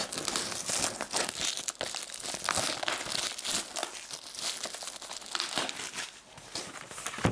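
Plastic shrink wrap crinkling and tearing as it is stripped off a hobby box of hockey trading cards: a dense run of irregular crackles that eases briefly near the end.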